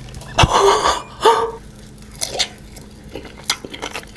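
Close-up mouth sounds of eating cola-flavoured jelly. A loud wet slurp comes about half a second in, then a short vocal sound, then quieter squishy chewing clicks.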